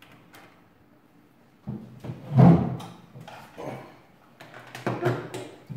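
Knocks and bumps of things being handled and set down on a wooden tabletop, an irregular run of thumps and light clatter, loudest about two and a half seconds in.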